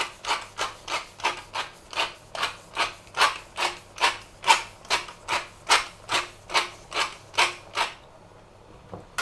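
Wooden pepper mill being twisted to grind peppercorns: a rhythmic grinding rasp, about three strokes a second, stopping about a second before the end.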